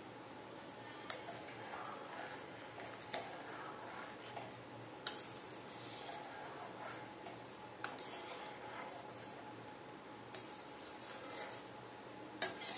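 Metal spatula stirring thick kadhi in a steel kadhai, with a soft scraping and a sharp clink against the pan every couple of seconds.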